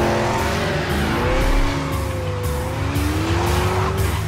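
Car engine running hard in a chase, its pitch rising and falling, with tyre squeal, over background music with a steady beat.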